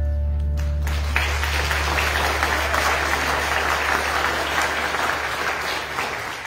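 Church congregation applauding a song, the clapping starting about a second in. Under it, the accompaniment's held low bass note lingers and fades out near the end.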